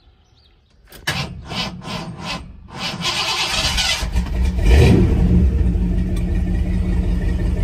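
Bullnose Ford truck engine being restarted hot: the starter cranks in a rapid rhythm for about two seconds, then the engine catches about four seconds in, revs briefly and settles into steady running. It is a hard start after reaching operating temperature, the fault being chased.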